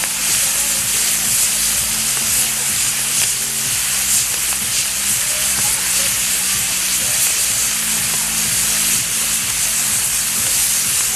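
Steady loud hissing of pyrotechnic fountains (gerbs) burning on a spinning mechanized ground-firework wheel, with a low steady hum beneath.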